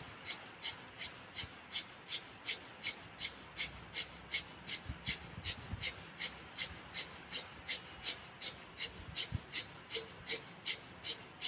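Kapalbhati pranayama at a fast pace: short, forceful exhalations snapped out through the nose, one sharp puff about three times a second in an even rhythm, with quiet passive inhalations between.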